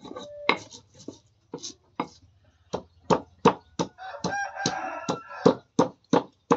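Stone pestle knocking and grinding in a stone mortar (cobek and ulekan), crushing chilies and garlic into a paste, with sharp knocks about twice a second. About four seconds in, a chicken calls for about a second and a half.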